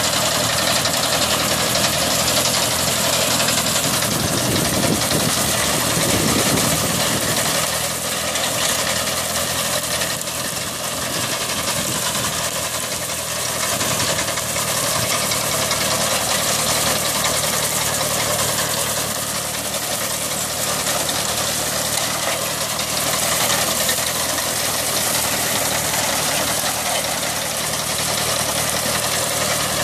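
Yapel ÇDG-370 reaper-binder's 30 hp water-cooled Kubota diesel engine running steadily at a constant pace, under a dense, even mechanical hiss.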